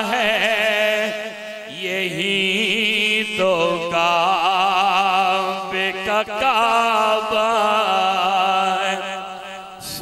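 Solo voice singing an Urdu naat, drawing one syllable out into long ornamented notes that waver up and down, over a steady low drone.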